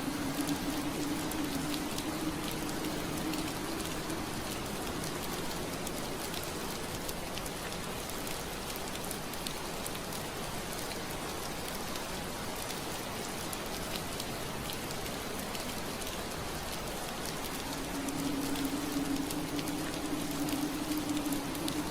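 Steady soft rain pattering on window glass, an even hiss flecked with small drop ticks. A low steady hum sits under it for the first few seconds, fades away, and comes back about 18 seconds in.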